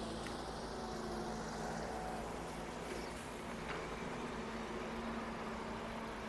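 An engine running steadily at an even speed: a constant mechanical hum with no change in pitch.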